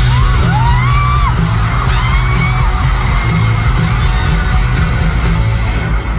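Loud live rock band with electric guitars and bass, heard from among an arena crowd that yells and screams over the music. The band stops near the end.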